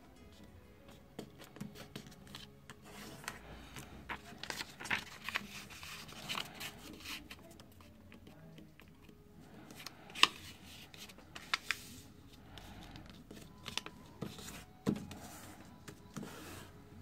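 A square sheet of paper being folded by hand on a table: irregular rustling and crinkling, with sharp crackles as the folds are pressed and creased flat, the loudest a little after ten seconds in.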